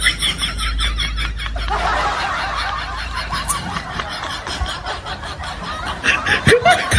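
People giggling and laughing, then a stretch of crowd chatter, with giggling starting again near the end.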